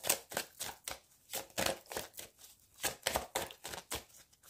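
A deck of large divination cards being shuffled in the hands: a quick, irregular run of short card snaps and slaps.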